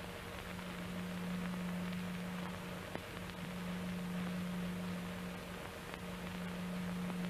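Steady hiss and low hum of an old film soundtrack with no dialogue, broken by a single click about three seconds in.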